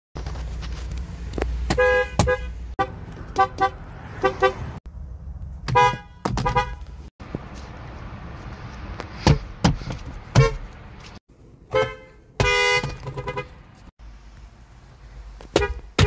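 Car horns of several different hybrid and electric cars, among them a Ford and a Kia, each sounded in short honks, often several in a row. The clips change abruptly from one horn to the next.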